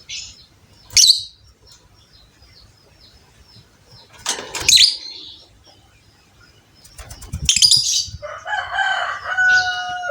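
Lovebirds giving short, shrill chirps and chattering bursts every second or few, with wing flapping. From about eight seconds in, a lower, steadier whistled call runs for about two seconds.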